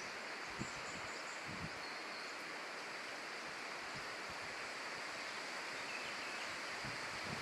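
Short-beaked echidna rummaging in leaf litter: faint rustling and a few soft low thuds over a steady outdoor hiss.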